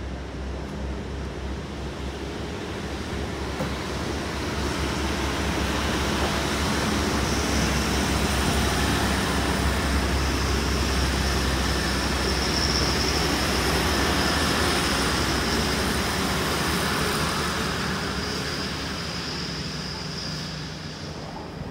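A train passing. Its rumble builds over several seconds, holds through the middle and fades near the end, with a steady high whine running over it.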